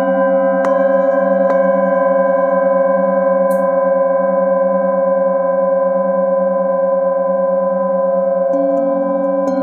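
Metal singing bowls ringing together in a sustained chord of several steady overlapping tones, the lowest ones wavering in a slow pulse. A couple of light mallet taps come near the start, and about 8.5 s in a fresh strike with the felt-covered mallet adds a new low tone.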